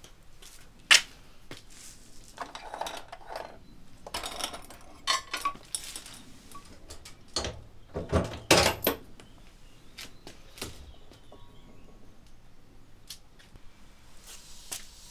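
Metal latches on an electric kiln's door being unfastened, with a sharp metallic click about a second in, then rattling and heavy knocks as the steel kiln door is swung open. Light clinks and taps of unglazed ceramic pots being handled on the kiln shelves follow.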